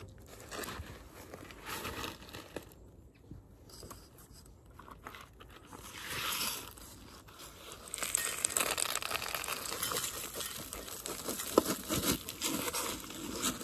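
Gritty rustling and crunching of potting soil being scooped and poured by gloved hands during repotting, with small scrapes and knocks of pots. It grows busier and louder about halfway through.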